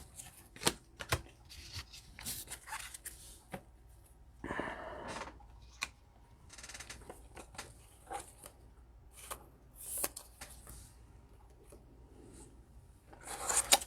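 Trading cards and foil packs being handled: faint scattered clicks and taps, with a few short rustles and slides.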